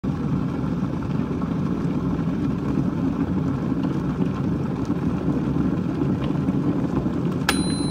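A steady, loud rumbling noise, strongest in the low range. Near the end a sharp click sets off two thin high tones.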